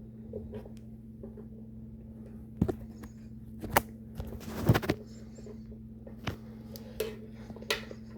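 A steady low hum with a handful of short knocks and clicks, the loudest cluster in the middle, like objects being handled and set down.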